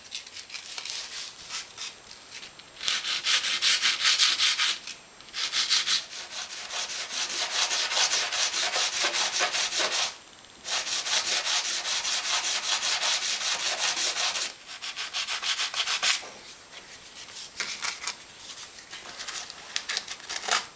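Sandpaper rubbing back and forth over a cast plaster slab, a fast rhythmic scratching in spells of several seconds with brief pauses, lighter strokes near the end.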